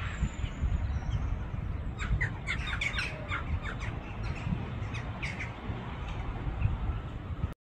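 Birds calling in short squawks, in a cluster about two to three and a half seconds in and again near five seconds, over a steady low rumble.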